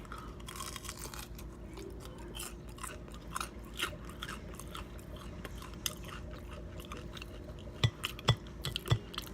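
A person chewing crunchy fried food close to the microphone, with irregular crisp crunches. Three sharper, louder crunches come near the end.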